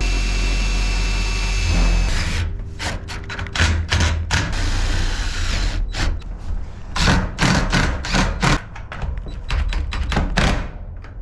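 Cordless drill running steadily for about two seconds, driving a roofing screw through a galvanized ridge cap on a corrugated metal roof. It is followed by a string of irregular knocks and clatters on the sheet metal.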